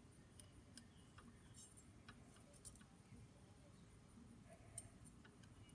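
Faint, irregular small metallic clicks and ticks as small parts of an Edison Diamond Disc reproducer are handled and worked with a fine hand tool; otherwise near silence.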